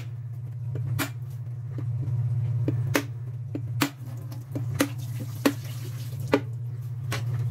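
A heavy kitchen knife striking a whole mature coconut to crack its shell open: a series of sharp knocks roughly once a second, over a steady low hum.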